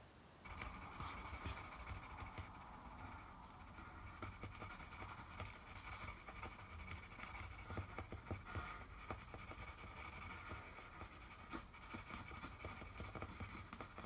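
Faint scratching and small taps of drawing on paper, starting about half a second in, over a low steady room hum.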